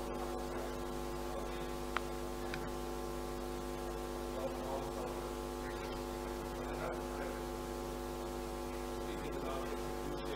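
Steady electrical mains hum from the hall's microphone and sound system, with one short click about two seconds in.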